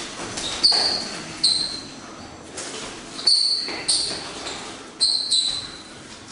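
Shoe soles squeaking on a wooden floor as practitioners shift their feet during chi sao drills: about six short, sharp, high-pitched squeaks.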